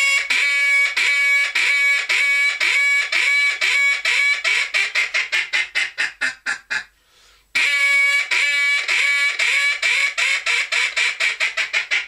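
Cadence duck call blown as a hail call, the long-range imitation of a mallard hen: a run of loud quacks, the first the longest, the later ones shorter, quicker and fading away. The run is given twice, the second starting about halfway through.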